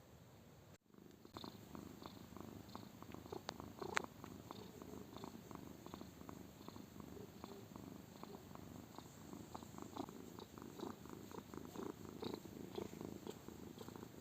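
A domestic cat purring steadily in a rough, pulsing rhythm, with one sharp click about four seconds in.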